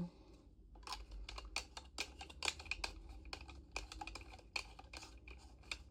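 Light, irregular clicks and taps of small plastic parts being handled as a mini tripod is fitted to the bottom of a compact camera, a few clicks a second.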